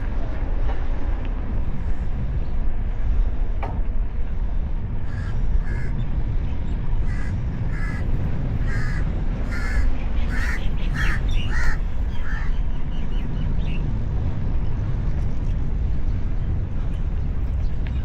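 Wind and riding noise rumbling steadily on an action camera's microphone while cycling. From about five to twelve seconds in, a bird gives a run of short repeated calls, roughly two a second.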